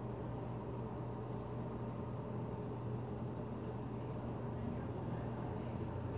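Concrete mixer truck's diesel engine running steadily with a constant low hum as the truck creeps forward.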